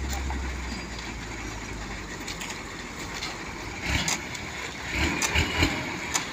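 Steady low hum of an engine running on a concrete-paving site, with scraping and sloshing of long-handled rakes and squeegees spreading wet lean concrete. The scraping comes in louder stretches about four seconds in and again between five and six seconds.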